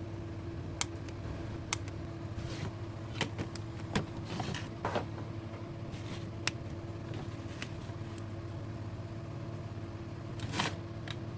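A steady low electrical hum, with scattered sharp clicks and a few short scraping or rustling sounds of small objects being handled.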